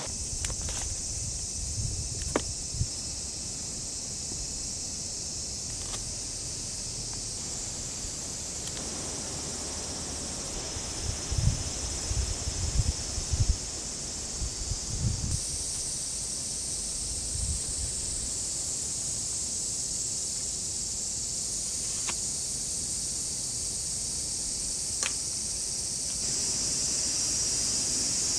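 A steady, high-pitched chorus of insects singing without a break, with a few low thumps in the middle and an occasional faint click.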